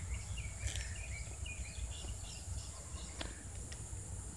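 Outdoor ambience: insects droning steadily at a high pitch, with a few short bird chirps in the first second or so, over a low rumble on the microphone.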